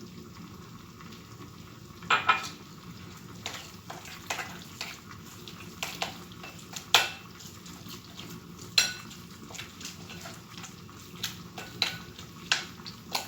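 A spoon clinking and scraping against a dish while stirring ground dried figs and garlic with olive oil: irregular clinks, the sharpest about two, seven and nine seconds in.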